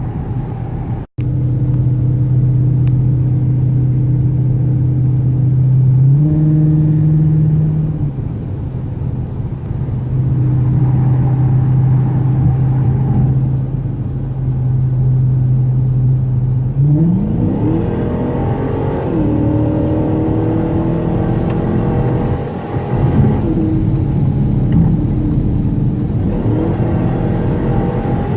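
Car engine running at a steady cruise, with a brief rise in pitch, then accelerating hard from about two-thirds of the way in: the engine note rises and drops back several times as it climbs through the gears.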